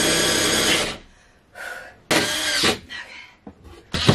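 Cordless drill driving screws into wood in short bursts: a long run at the start, another about two seconds in, a brief one after it, and a sharp knock near the end.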